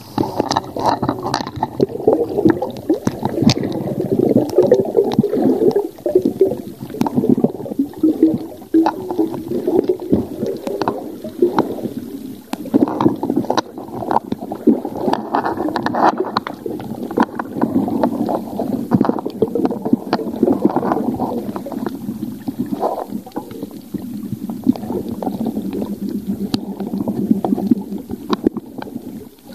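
Muffled underwater sound from a submerged camera: water gurgling and sloshing, with scattered clicks and knocks throughout.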